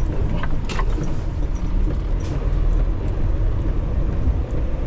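Semi-truck diesel engine running with a steady low rumble, heard from inside the cab, with a few faint clicks.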